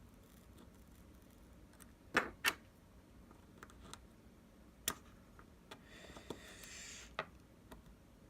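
Small sharp clicks of a tool against an iPhone 5s's loudspeaker module and housing as it is pried at, the speaker stuck because a screw still holds it down. Two louder clicks about two seconds in, single clicks near five and seven seconds, and a soft scrape around six seconds.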